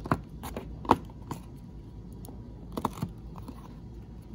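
Handling and opening a small cardboard diecast-car box (Kaido House): a few scattered sharp taps and clicks of the card and its flap, the loudest about a second in and a pair near three seconds.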